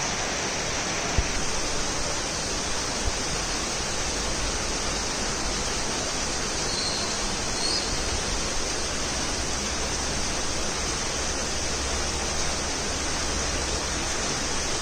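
Heavy rain falling in a steady, even hiss, with a low rumble underneath and a brief knock about a second in.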